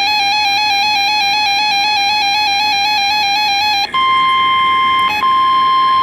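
Weather radio alert: an electronic alarm warbling rapidly between two close pitches. About four seconds in it switches to a steady single high tone, the broadcast warning alarm tone, which cuts out briefly twice.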